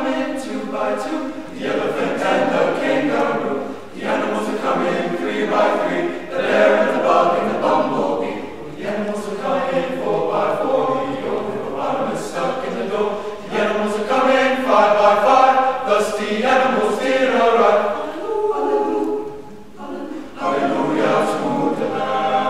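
Men's chorus singing in harmony, a cappella, with short breaks between phrases about four seconds in and again near the end.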